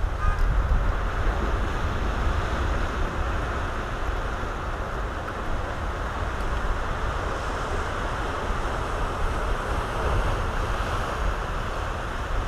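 Ocean surf breaking and washing over the rocks below a sea cliff, a steady rushing wash, with wind rumbling on the microphone.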